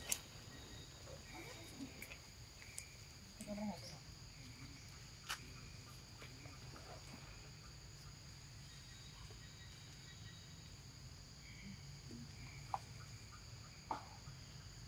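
Steady insect chorus in dense vegetation, a continuous high drone at two pitches, with a few faint scattered clicks and taps.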